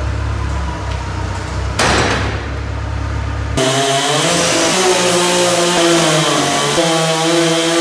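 Engine-driven bandsaw sawmill running and cutting through a large oak log, with a steady hiss of the blade in the wood. The sound changes abruptly about three and a half seconds in to a wavering engine note with a higher, sawing hiss on top.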